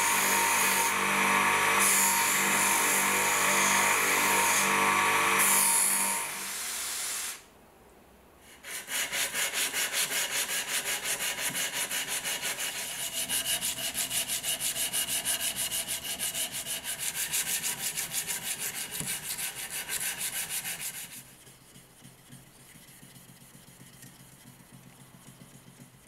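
Bench grinder's wheel running with a steady motor hum as a small steel blade part is held against it; the motor stops about six to seven seconds in. After a short pause, abrasive paper is rubbed quickly back and forth along a rusty steel knife blade in steady, even strokes, which grow much fainter for the last five seconds.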